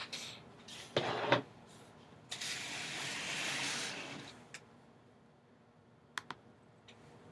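A large cardboard box for a football helmet being handled on a tabletop. There is a sharp knock, then two heavy thumps about a second in, followed by about two seconds of scraping as the box slides across the table, and a few light clicks near the end.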